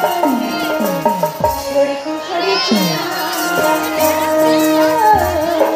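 Live folk-theatre music: held organ-like notes with several falling swoops of pitch, and heavy low drum beats coming in about five seconds in.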